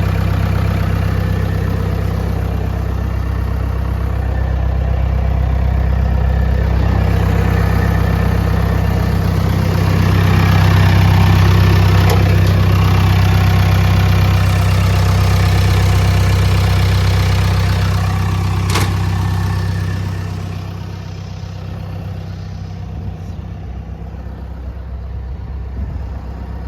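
New Holland D95B crawler bulldozer's diesel engine idling steadily; it drops noticeably in level about 20 seconds in.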